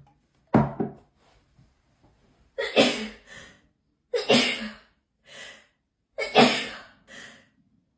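A person sneezing over and over in a hay fever sneezing fit: a short sharp sound about half a second in, then three loud sneezes about two seconds apart, each followed by a quieter short sound.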